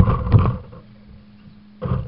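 RC truck running, heard through its onboard action camera: loud rough rumble with sharp clicks and knocks, which drops away about half a second in to a faint steady hum and comes back loud near the end.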